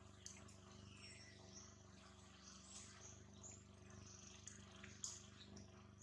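Near silence: faint outdoor ambience with scattered high chirps, a few soft clicks and a steady low hum.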